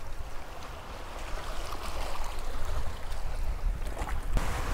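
Shallow surf washing over a rocky shoreline, with wind rumbling on the microphone. The wash swells suddenly louder near the end.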